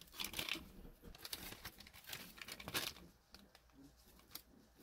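Crinkling and rustling of a ration sandwich pouch as the shelf-stable sandwich is pulled out of it. The handling is busiest for about the first three seconds, then thins to a few faint ticks.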